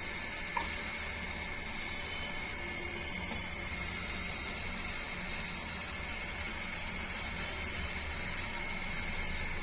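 Steady hiss with a low hum from a gas stove burner heating a pan of water with tulsi leaves, ginger and turmeric, with a faint tick about half a second in.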